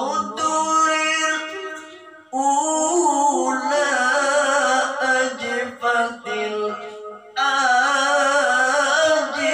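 A male qori's solo voice reciting the Quran in melismatic tilawah style: long held notes with fast ornaments, broken by short pauses for breath about two and seven seconds in.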